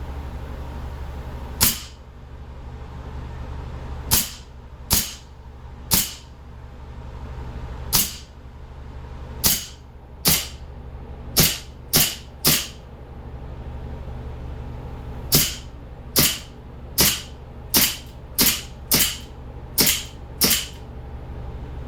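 CO2 replica 1911 pistol fired again and again into a pumpkin: about twenty sharp cracks, spaced a second or two apart at first and coming faster in the second half.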